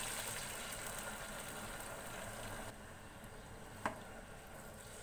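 Pot of frying beef and rice sizzling as yakhni (meat stock) is poured in, the noise dropping off about two and a half seconds in. A single light click near the end.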